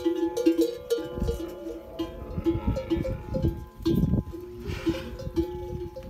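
Metal camel bells hanging from the animals' necks clanking irregularly as the camels shift about, with low thuds underneath. A brief rasping sound comes about four to five seconds in.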